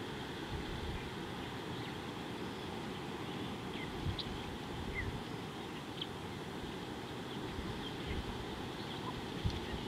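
Wind rumbling on an outdoor microphone, with a couple of dull knocks, and scattered short faint bird chirps.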